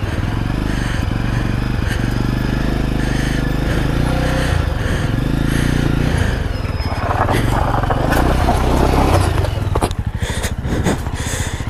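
Jawa 42 2.1 motorcycle engine running as the bike is ridden over a loose, sandy off-road track. About seven seconds in, a louder noisy rush rises for a couple of seconds, followed by a few sharp knocks near the end.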